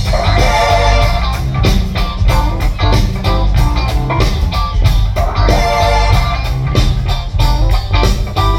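Rock music: guitar over a drum kit with a steady beat and heavy low end.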